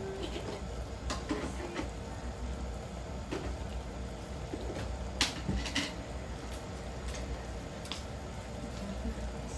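Chicken feet and liver adobo simmering in a wok: scattered small pops and clicks of bubbling sauce, the sharpest about five seconds in, over a steady low hum.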